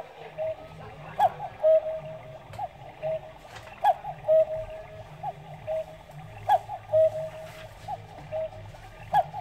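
Cuckoo clock calling the hour: the bellows pipes sound a two-note cuckoo call, a sharp click with a short higher note and then a held lower note, repeated about every two and a half seconds while the bird stands out on its platform.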